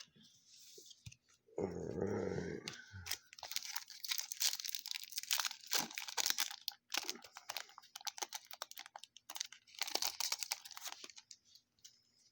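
A trading-card pack wrapper crinkling and crackling as it is torn open and handled, in a dense run of crinkles lasting several seconds with short pauses.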